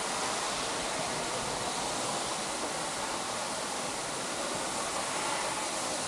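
Steady rush of a waterfall, an even hiss of falling water.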